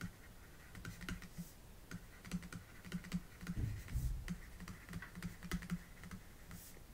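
Faint, irregular light clicks and taps of a stylus writing on a pen tablet, with a couple of dull low knocks about halfway through.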